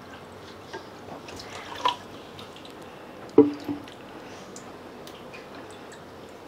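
Water splashing and dripping in a bowl as button mushrooms are rubbed clean by hand, with small clicks and a short, louder knock about three and a half seconds in.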